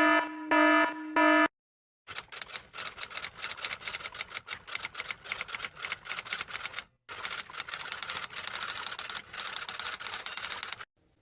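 A few short, pitched buzzer beeps, then a long run of rapid typewriter clacking, with a brief pause about seven seconds in.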